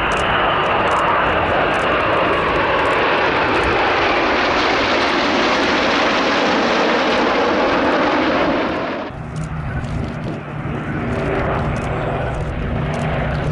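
Steady rush of jet noise from the Red Arrows' BAE Hawk jets flying past in formation with a Sentinel R.1. About nine seconds in it cuts abruptly to the lower, steady drone of piston engines and propellers from the Battle of Britain Memorial Flight's Avro Lancaster, Spitfire and Hurricane.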